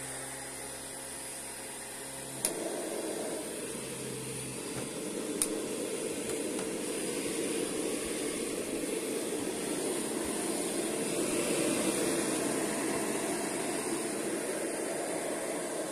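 Kirby G5 upright vacuum cleaner running, its steady motor hum turning about two seconds in into a louder rush of air that lasts almost to the end, with two sharp clicks early on the change.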